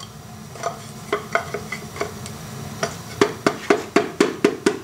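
Wooden hammer handle tapping on a connecting rod in a Mercedes M117 V8 block to drive a piston out of its bore. A few scattered light knocks and clatter, then from about three seconds in a steady run of quick taps, about five a second, each with a short ring.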